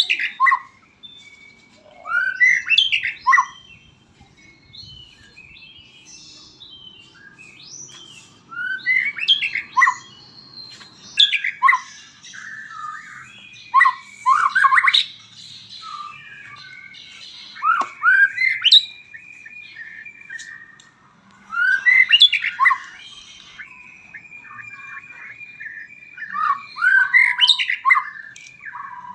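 A murai batu (white-rumped shama) singing: loud, rapid whistled phrases that sweep up and down, coming every few seconds, with quieter chattering notes in between.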